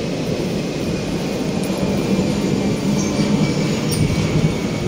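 A steady low rumble with no distinct events standing out.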